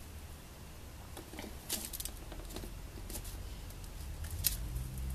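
Fingers picking and pulling at the edges of a stiff, coated cardboard blush box, making a few faint scattered clicks and scratches.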